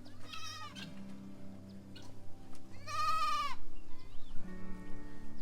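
A goat bleating twice: a short call near the start and a longer, louder one about three seconds in, each rising and then falling in pitch. Steady background music plays underneath.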